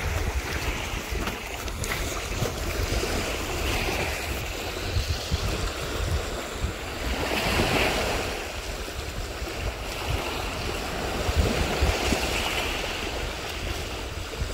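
Sea waves washing onto the shore, the wash swelling and fading every few seconds, with wind buffeting the microphone as a constant low rumble.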